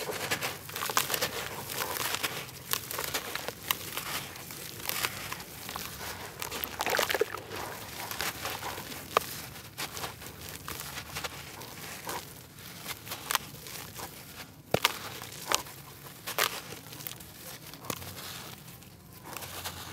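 A water-soaked block of grainy red dirt crunching and crumbling as hands squeeze and break it apart in muddy water: a dense, irregular crackle with a few louder cracks.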